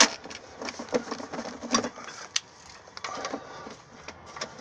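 Scattered light clicks and metal-on-metal taps as a socket on a long extension and a cordless impact gun are fitted onto a starter mounting bolt.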